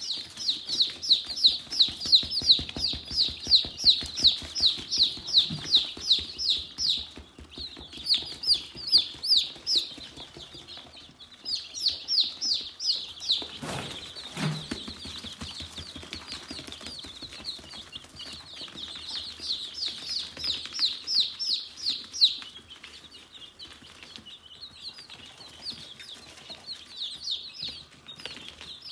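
Young chicks peeping: high, downward-sliding peeps, about three or four a second, in bursts that come and go.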